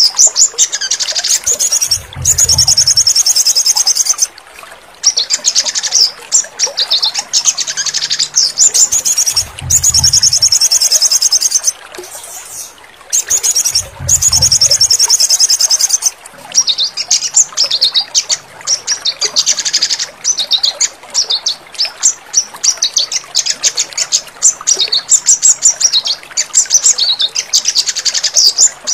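Sogon (olive-backed sunbird) song: fast, high twittering trills in repeated bursts of a few seconds each. This is therapy birdsong audio played to bring a caged bird that has gone quiet back into song.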